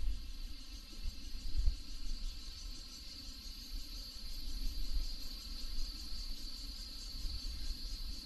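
Insects chirring steadily in a high, fast-pulsing trill, over a low, uneven rumble.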